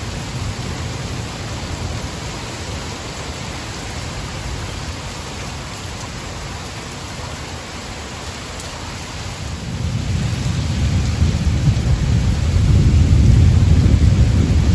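Steady rain with thunder: a deep rolling rumble builds up about two-thirds of the way through and grows loud near the end.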